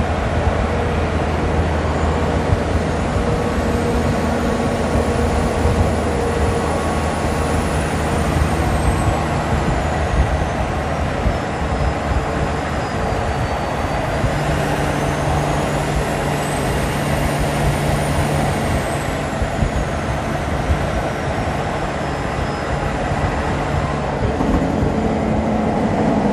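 Peterbilt semi truck's diesel engine pulling steadily at highway speed, heard from an alongside car over steady tyre and wind noise. Its low engine note steps higher about halfway through, and a faint high whine rises and falls twice.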